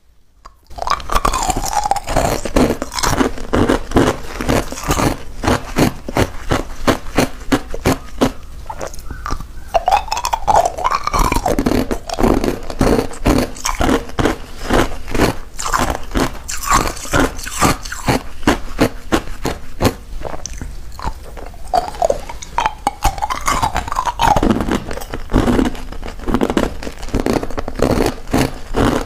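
Clear ice cubes being bitten and chewed close to a clip-on microphone: a steady run of sharp, crackling crunches, starting about a second in.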